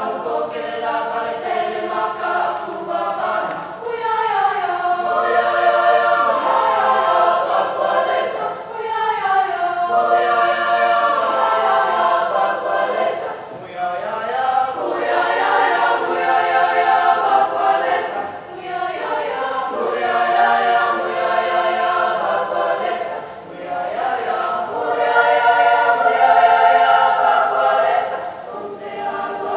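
Youth choir singing a choral piece in harmony, the phrases swelling and easing, with crisp 's' consonants sung together every few seconds.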